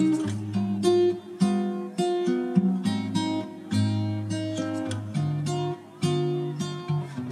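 Background music: acoustic guitar picking single notes that ring and fade, over held low bass notes.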